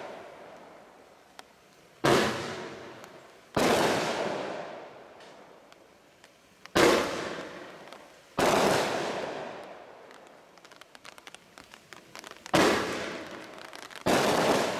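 A 49-shot firework cake barrage firing: six loud shell bursts at uneven gaps of one and a half to three seconds, each bang fading away over a second or so. Light crackling comes between bursts about two-thirds of the way through.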